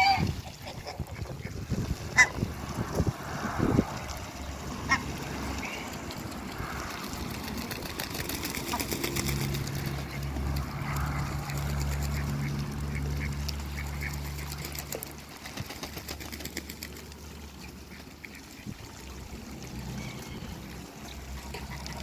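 A backyard flock of Muscovy ducks and Egyptian geese calling, quacks and honks scattered through, with a few sharp short sounds in the first few seconds. A low steady hum runs for several seconds in the middle.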